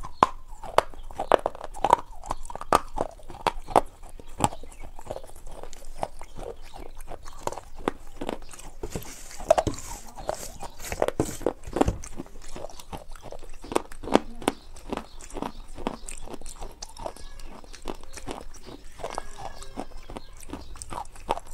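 A person chewing and eating close to a clip-on microphone, with a steady run of sharp mouth clicks and smacks, several a second.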